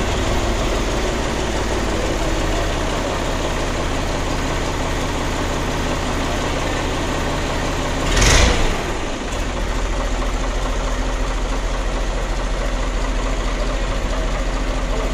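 New Al-Ghazi 65 hp tractor's diesel engine idling steadily, with a short loud hiss-like burst about halfway through, after which the engine note changes slightly.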